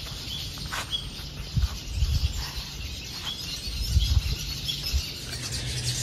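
Wild birds chirping in short, scattered high calls over a soft outdoor background, with two brief low rumbles about two and four seconds in.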